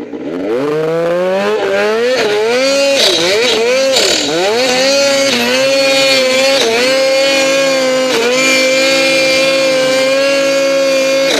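Snowmobile engine accelerating hard, its pitch climbing, dropping and climbing again as the throttle is worked in the first few seconds, then held at high revs with a few brief dips as the rider lifts off momentarily.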